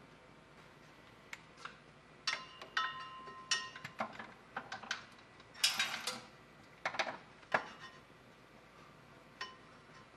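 Metal hand tools clinking and clanking against metal: a scatter of sharp, irregular clinks, several of them ringing briefly, as sockets and wrenches are handled and fitted to bolts under a truck.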